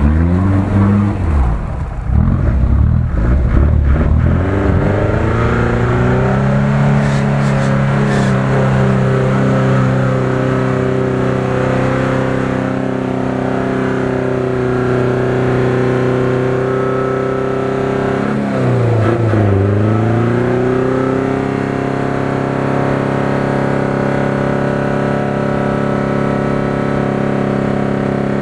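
UAZ-469 engine held at high revs while the 4x4 is stuck in deep mud ruts, a steady labouring note that dips and climbs back up about two-thirds of the way through. The first few seconds are a rougher, fluctuating engine sound.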